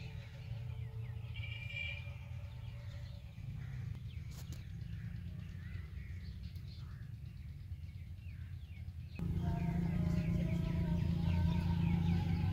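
Birds chirping over a steady low rumble in open fields. About nine seconds in, the sound jumps suddenly louder, with steady low tones and a melody, as background music starts.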